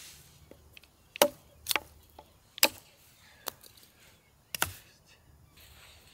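Chopping: about five sharp knocks at uneven intervals, a blade striking a hard surface.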